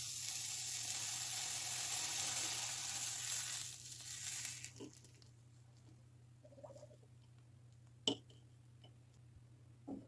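Kitchen knife cutting down through a chocolate-shelled dessert with a crisp kadayıf base: a steady crackling crunch for about four and a half seconds. Then small ticks, a sharp click about eight seconds in and a softer knock near the end.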